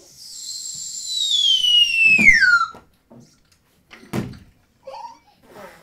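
A high whistle held and then sliding down in pitch for nearly three seconds, followed by a single knock about four seconds in.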